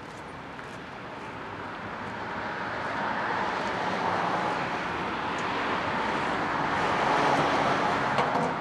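A road vehicle passing by: engine and tyre noise swells gradually for several seconds and falls away near the end.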